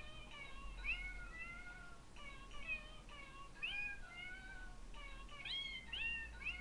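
Novelty cat birthday card's sound chip playing recorded cat meows with its chin flap pulled open. The short meows come one after another and crowd closer together near the end.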